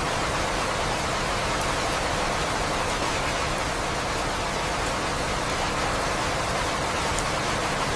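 Steady rain, an even unbroken hiss of falling rain.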